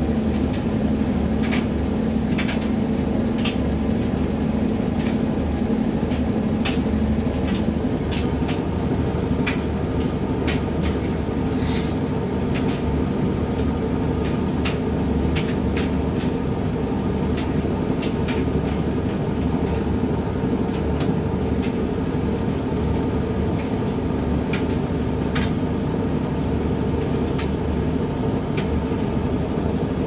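Hoover washer-dryer running the start of its drying cycle: a steady motor and fan hum as the drum turns, with irregular light clicks as the clothes tumble inside.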